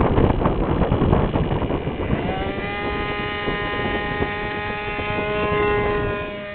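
Model aircraft two-stroke glow engine running at high revs on a tuned pipe, with rough buffeting noise at first. About two seconds in, a clear high engine note comes in, rises slightly and then holds steady until near the end.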